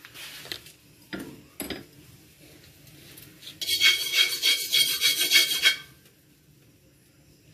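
Metal spatula scraped briskly around the inside of a metal wok on a gas stove, a rapid run of rasping strokes with a metallic ring lasting about two seconds, starting a few seconds in. Before it come a few light clacks of utensils against the pan.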